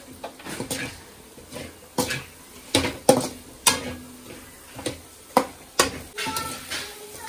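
Metal spatula knocking and scraping against a metal kadai as prawns, egg and chopped vegetables are sautéed: a dozen or so sharp, irregular clacks.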